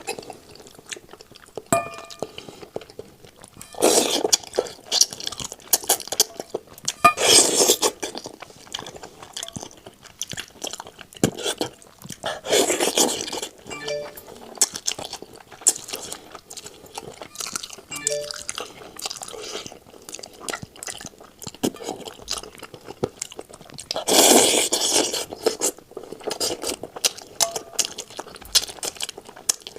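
Close-miked eating of cooked chicken: wet chewing and crunching, with many small clicks and clinks, and a few louder crunches spaced several seconds apart.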